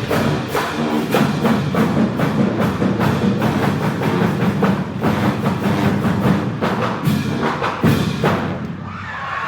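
Loud recorded dance music with a steady, driving drum beat; near the end the beat drops out briefly and a sweeping sound rises into its return.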